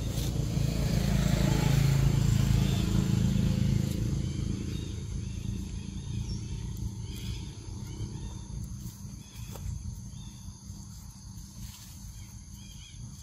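A motor vehicle's engine passing, loudest about two seconds in, its pitch dropping as it goes by, then fading away. Steady high insect drone runs underneath.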